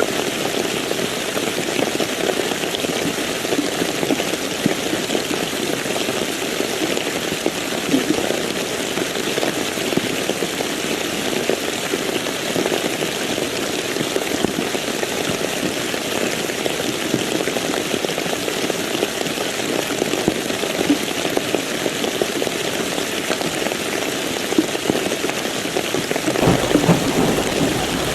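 Steady rain falling. Near the end a deep rumble of thunder begins to build.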